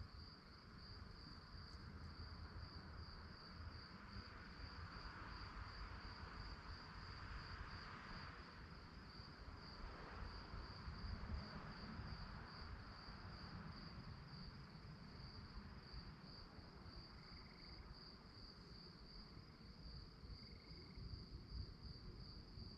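Crickets chirping steadily in a high-pitched, evenly pulsed trill of about three chirps a second, faint, over a low background rumble.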